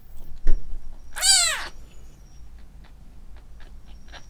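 About-two-week-old kitten mewing once, a loud high cry that rises then falls. A sharp knock comes just before it, and faint handling clicks follow.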